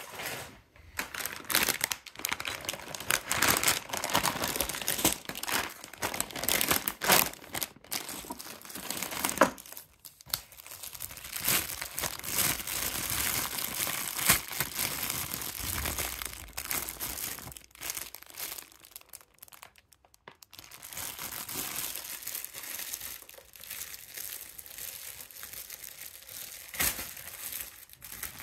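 Clear plastic parts bags and plastic wrapping of a building-brick set crinkling and rustling as they are handled, with short pauses about ten seconds in and around twenty seconds.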